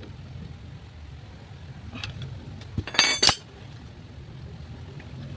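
Steel hand tools clanking on metal as a ring spanner and a holding tool come off the clutch housing nut of a motorcycle engine. There is a light click about two seconds in, then a loud, sharp clank that rings briefly about three seconds in.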